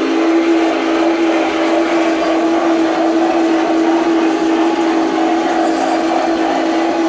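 LGB G-scale model locomotive running on the layout: a steady whine from its electric motor and gearing over a continuous mechanical rattle, holding one even pitch throughout.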